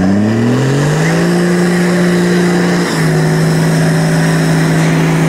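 Toyota Land Cruiser 80 under load during a recovery pull on a taut line: a mechanical whine rises in pitch over the first second, holds steady, then steps slightly lower about three seconds in as the load changes.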